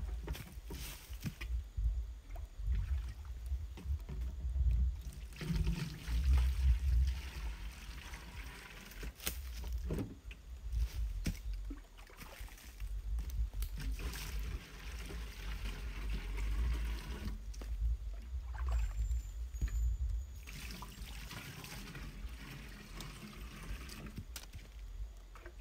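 Spring water being scooped with a plastic dipper and poured into a plastic jerry can, splashing and trickling in several spells, with knocks of plastic against stone and plastic, over a steady low rumble.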